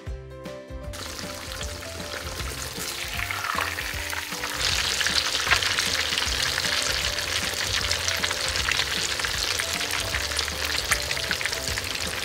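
Food frying and sizzling in a miniature pan. The sizzle starts about a second in and grows louder about four and a half seconds in, over background music.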